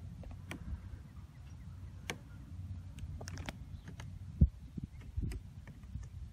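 Low, steady rumble of wind on the microphone, with scattered faint clicks and one sharp knock about four and a half seconds in.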